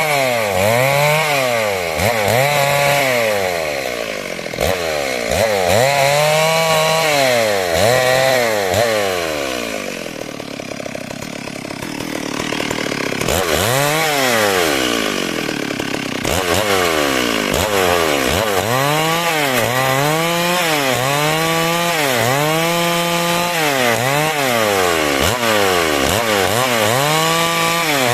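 Stihl MS 382 two-stroke chainsaw cutting through timber to square a beam. Its engine speed rises and falls over and over as it bites into the wood. It eases off for a few seconds around the middle, then picks up the same rhythm again.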